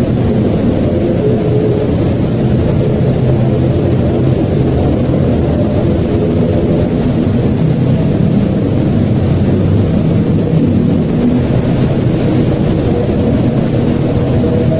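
Loud, steady low rumbling drone with a few faint held tones above it.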